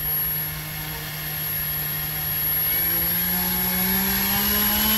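3D-printed three-blade propeller spun by a battery-powered electric motor on a thrust stand, a steady hum that starts rising in pitch about two seconds in as the throttle is opened from quarter toward half.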